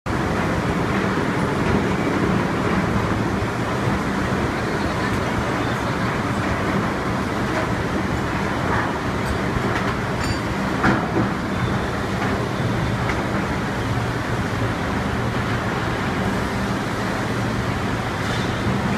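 Magaldi Superbelt steel pan conveyor running with metal castings and their gating on it: a steady mechanical rumble and hum, with a few light metallic clicks and knocks, the loudest about eleven seconds in.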